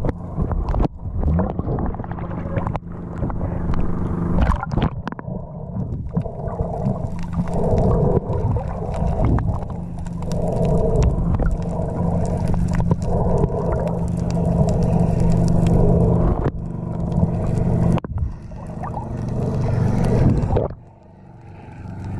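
Sound heard underwater through a submerged camera: a steady low motor hum, typical of a boat engine carried through the water, over muffled gurgling water noise, with a few sharp clicks.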